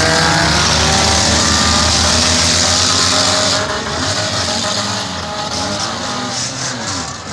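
A pack of race cars driven in reverse gear, their engines running hard as they pass close by. Loud at first, dropping off about three and a half seconds in as the cars move away.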